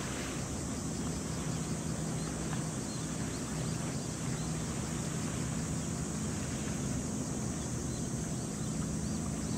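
Steady low drone of a ship's engine mixed with wind noise on the microphone, with a few faint high chirps now and then.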